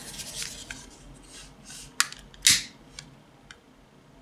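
Long-nozzle butane utility lighter being picked up and fired: a sharp click about halfway through, a short noisy burst just after it as it lights, then a few faint clicks.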